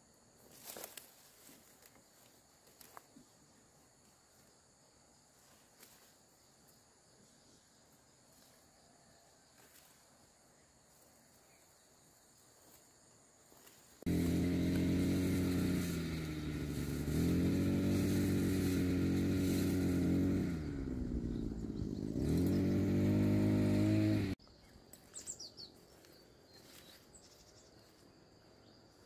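Soft rustling and snapping of fern fronds being picked, then a small engine runs loudly for about ten seconds, its pitch dropping and rising a few times before it cuts off abruptly.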